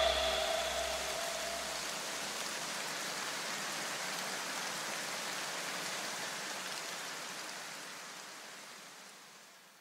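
Tail of an electronic outro track: after the beat cuts off, a few low notes die away in the first couple of seconds, leaving a steady hiss of noise that fades out to silence near the end.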